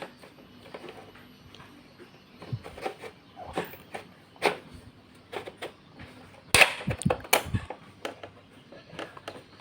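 Hardware being fitted into an all-in-one PC's chassis: scattered light clicks and knocks of plastic and metal parts, with two sharper clacks close together about two-thirds of the way through.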